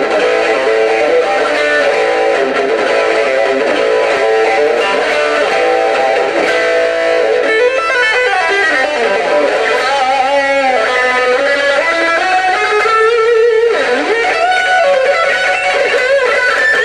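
Electric guitar playing a fast rock solo, with two-handed tapping on the fretboard. In the middle a pitch swoops down and then climbs back up.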